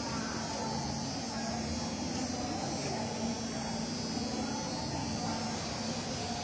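Steady hum and hiss of an indoor exhibition hall's background noise, with no distinct event.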